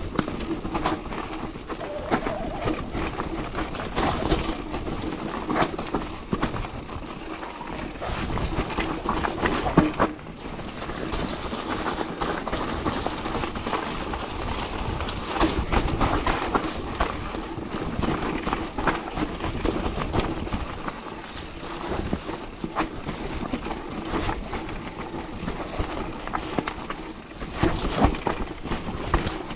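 Electric mountain bike riding fast over a rough forest trail: tyres rolling on dirt and roots, with frequent knocks and rattles from the bike over the bumps.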